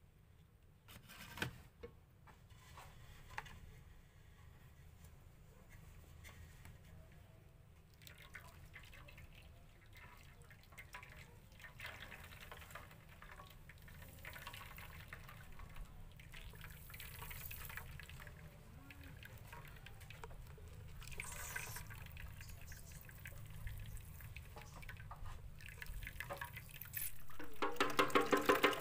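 Faint dripping and trickling of passion fruit juice as a cloth bag of pulp is wrung out by hand into a pot, with a small knock about a second and a half in. Music starts near the end.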